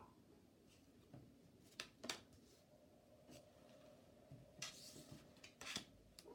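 Tarot cards drawn from the deck and laid down on a wooden tabletop: a few faint taps and, about four and a half seconds in, a soft slide of card over wood.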